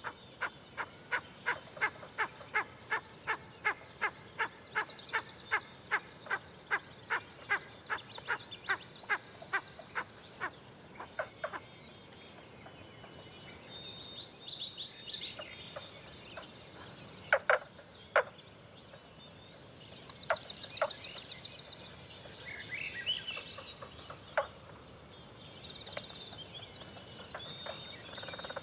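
Wild animal calls at dawn: a long, even series of sharp clicking calls, about two a second for some ten seconds, then a few scattered louder clicks, with high buzzy bird trills coming and going.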